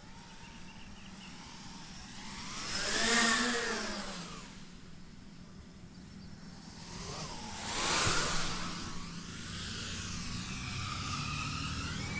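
A 7-inch FPV quadcopter flying on four 3D-printed eight-blade propeller hubs (32 DALPROP folding blades). Its motor and propeller whine swells and rises, then falls in pitch, twice, loudest about three and about eight seconds in, over a steady low hum.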